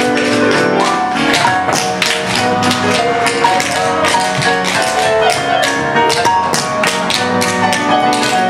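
Recorded music playing, with quick, sharp tap-dance taps throughout.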